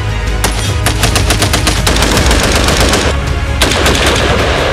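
A fast string of gunshots from a 12.5-inch-barrelled .308 AR-10 rifle, with background music underneath.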